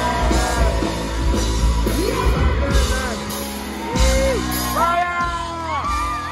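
Ska-punk band playing live through a concert PA, recorded from the crowd, with loud drums and singing. About five seconds in the drums stop and fans close by whoop and yell.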